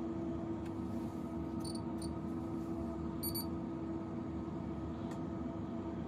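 Steady electrical hum of repair-bench equipment, with a few faint, brief high-pitched chirps about two and three seconds in.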